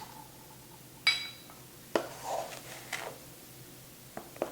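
Measuring cup clinking and knocking against the mixing bowl while cups of sugar are scooped in: one ringing clink about a second in, then a sharp knock and several lighter taps.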